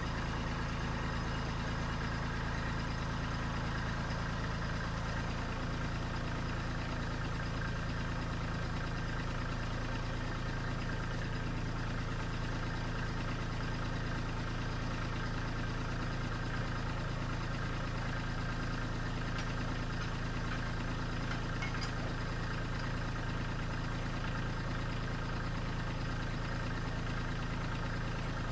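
Kubota diesel machinery idling steadily at an even, unchanging speed.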